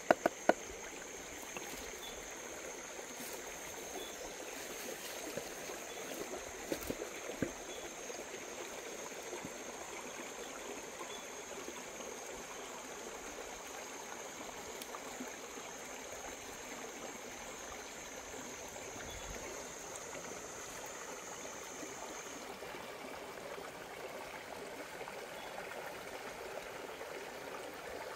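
Shallow stream running over rocks, a steady rushing trickle. A steady high-pitched whine runs over it and stops about three-quarters of the way through, and a few sharp knocks come at the very start and about seven seconds in.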